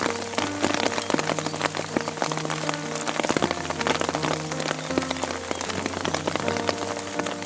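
Steady rain falling, a dense hiss of many small drop hits, with background music of slow held notes over it.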